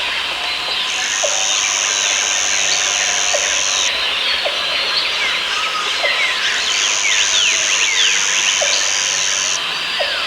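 Rainforest ambience: many birds chirping and calling at once in a dense chorus. A high, steady insect buzz comes in about a second in and lasts about three seconds, stops, then returns for about three seconds more.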